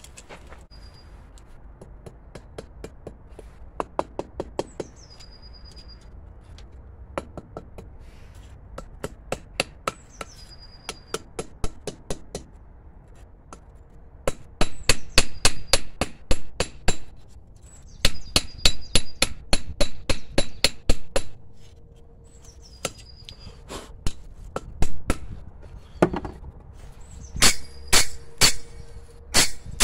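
Blacksmith's hand hammer striking red-hot file steel held in tongs on an anvil. Light, scattered blows at first, then fast runs of loud, ringing strikes with short pauses between them.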